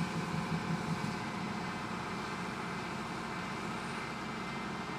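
Factory machinery running with a steady hum; a low pulsing throb in the first second settles into an even drone.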